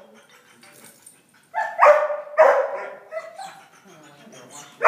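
A dog barking in short, sharp barks: three loud ones in quick succession about a second and a half in, a couple of softer ones around three seconds, and another loud bark at the very end.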